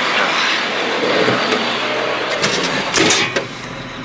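Diesel engine of a construction-site dump truck running steadily while someone climbs into its cab. There are a few knocks and a bang about three seconds in as the cab door is shut, after which the engine sounds muffled and quieter.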